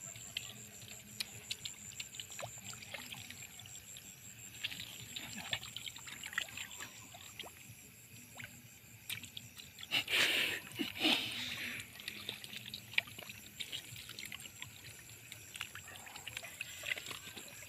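Water trickling and splashing in a shallow stream, with scattered small splashes and a louder splash about ten seconds in.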